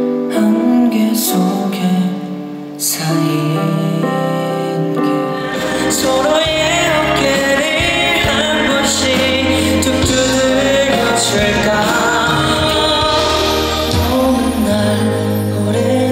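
A male singer performing slow ballads live with instrumental accompaniment. The music cuts to a different song about three seconds in and again about five and a half seconds in, where a fuller backing with a low bass line comes in.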